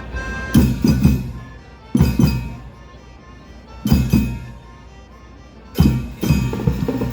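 School marching band playing: loud accented hits of bass drums and crash cymbals roughly every two seconds, each followed by a quick second hit, over held notes from the melody instruments.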